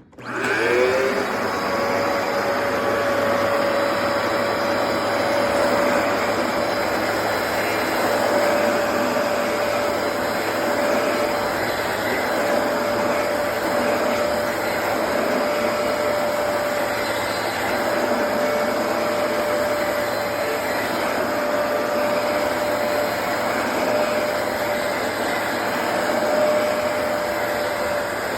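Hoover PowerDash Pet carpet cleaner switched on: its motor spins up with a rising whine in the first second, then runs steadily with a constant whine over a rushing noise.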